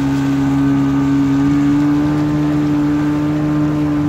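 Jet ski engine running at a steady cruising speed while towing a boat, its pitch rising slightly about two seconds in.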